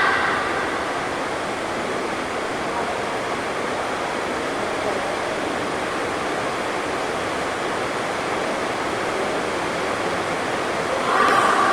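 Heavy rain drumming steadily on the sports hall roof, an even rushing hiss, with voices rising briefly at the start and again near the end.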